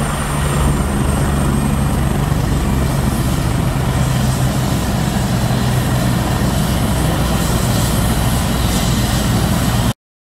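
Medical helicopter's turbine engines and rotor running steadily while it sits on the helipad after landing, a loud even drone. It cuts off suddenly near the end.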